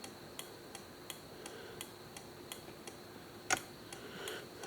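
Turn-signal flasher ticking steadily, about three clicks a second, as the newly fitted turn signals blink, with one louder click about three and a half seconds in.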